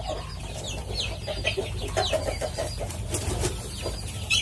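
Chickens clucking, with several short, high, falling chirps over a steady low rumble.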